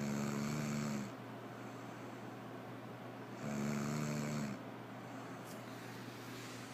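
Snoring: two snores, each about a second long, about three and a half seconds apart, over a faint steady low hum.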